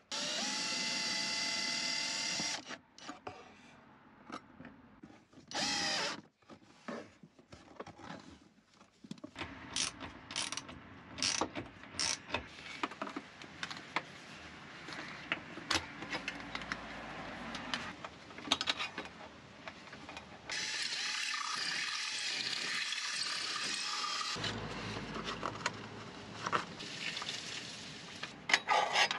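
Hand and tool work on a diesel heater installation under a van: a steady machine whir for the first couple of seconds and again briefly near six seconds, then scattered clicks and clatter of metal parts and fittings, with a longer mechanical ratcheting run late on.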